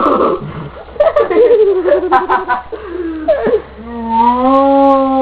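A child imitating a horse's whinny with the voice, mixed with giggling. There is a wavering, falling call, then a long held voiced note near the end.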